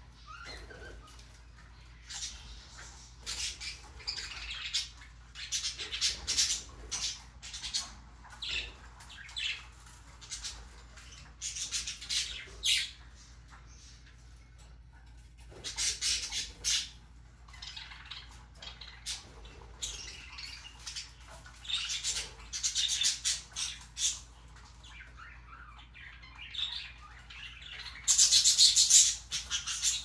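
Budgerigars chirping and chattering in many short bursts of high calls, with a loud run of calls about two seconds before the end.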